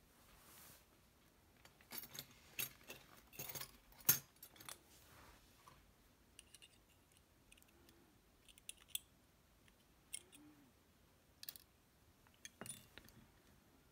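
Small metal clicks and clinks of tools working on the Basi K10 dimple lock's cylinder while trying to push out tight-fitting key pins. A quick cluster of clicks about two to five seconds in, the sharpest near the middle of it, then scattered lighter ticks.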